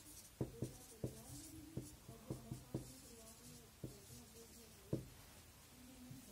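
Marker pen writing on a whiteboard, faint: light rubbing strokes with a string of short, irregular ticks as the letters are formed.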